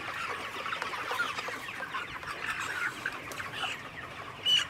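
A large flock of broiler chickens clucking, many birds calling over one another in a continuous chatter, with one louder call near the end.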